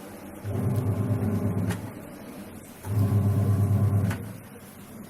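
Videocon DiGi RIO PLUS 6.5 kg washing machine agitating the wash: the motor runs with a low hum for about a second, stops for about a second, then runs again. This happens twice, with a faint click as each run ends and a third run starting near the end.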